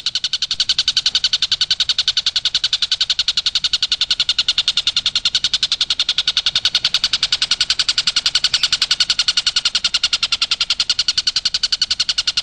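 Tengkek buto, a kingfisher, calling in a rapid, unbroken chatter of sharp repeated notes, roughly nine a second, held at a steady pace and level.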